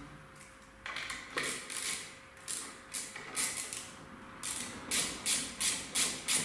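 Bar-end mirror being twisted onto its mount at the end of a handlebar by hand: a series of short scraping clicks, one with each turn. They come irregularly at first and settle to about three a second in the last two seconds.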